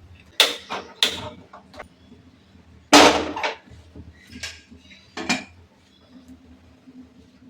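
Metal kitchen utensils, pots and dishes knocking and clattering in a series of sharp strikes. The loudest strike comes about three seconds in and rings briefly.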